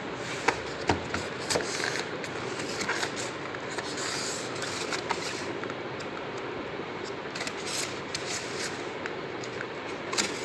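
Packaging of a toy airsoft pistol being handled: scattered sharp clicks and scraping rustles, with the loudest clicks about half a second and a second in and again near the end, over a steady background hiss.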